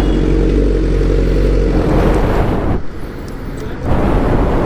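Suzuki GSX-R motorcycle engine idling with an even note. About two seconds in, the note breaks into a rougher, noisy rumble that drops off briefly and comes back near the end.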